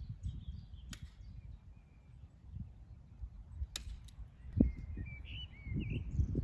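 Outdoor farm ambience: small birds chirping and warbling over an uneven low rumble, with two sharp clicks, one about a second in and one near the middle.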